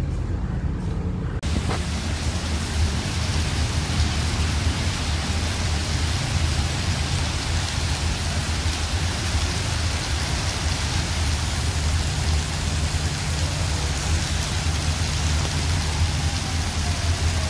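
Steady rain falling on wet paving, an even hiss that starts abruptly about a second and a half in, over a constant low rumble.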